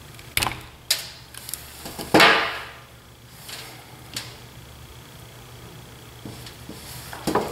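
Wire cutters clicking and snipping at a flat USB cable, with handling noise from the cable and tools on a tabletop: a few sharp clicks, one louder scraping rustle about two seconds in, and another cluster of clicks near the end.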